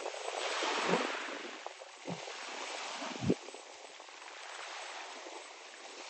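Small waves washing and lapping at the water's edge, a rushing sound that swells and fades, with three soft low thumps about a second apart.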